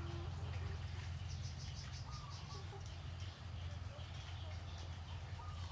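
Faint outdoor ambience: scattered birds chirping over a steady low hum.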